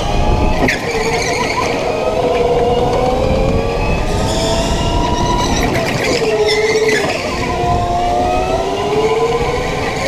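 Go-kart running hard through corners on an indoor track, its whine rising and falling in pitch as it slows into turns and speeds out of them.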